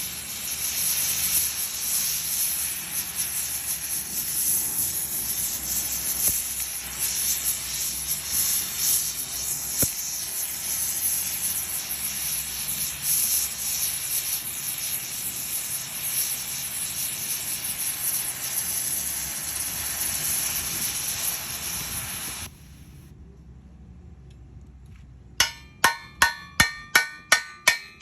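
Welding on steel truck-body metal: a steady crackling hiss that stops about three-quarters of the way through. After a short lull, a hammer strikes the metal in quick ringing blows, about three a second.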